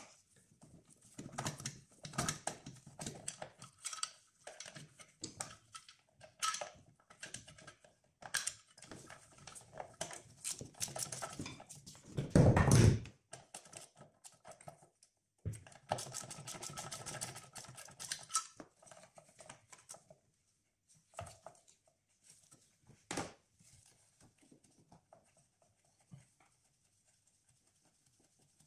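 Irregular clicks, knocks and rattles of gloved hands and tools working on engine parts under the bonnet, with a heavier clunk about twelve seconds in. After about twenty seconds it goes mostly quiet apart from two single knocks.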